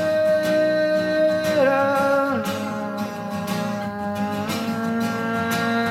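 Background music: a song with guitar, its long held notes changing from pitch to pitch every second or two.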